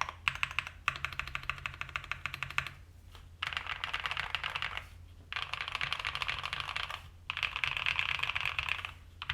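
Fast typing on a custom 65% mechanical keyboard with lubed Cobalt POM switches, a POM plate and PBT keycaps: dense keystroke clicks in about four runs of one to two seconds, separated by short pauses.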